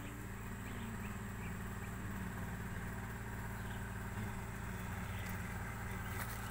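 A steady, low engine hum, as of a motor idling, holding an even level throughout, with a couple of faint crinkles of a plastic sheet being moved near the end.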